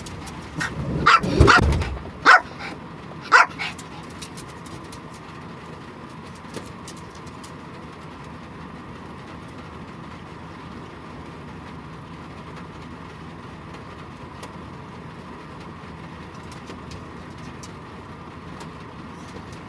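Pomeranian barking, a quick run of barks in the first two seconds and two more single barks by about three and a half seconds in, over a steady hiss.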